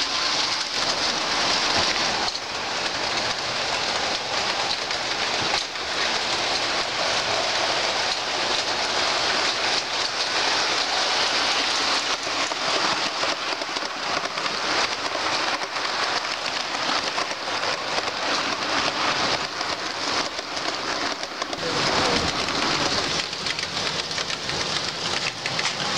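O scale two-rail model trains running on the layout track: a steady, dense clatter of metal wheels rolling over the rails.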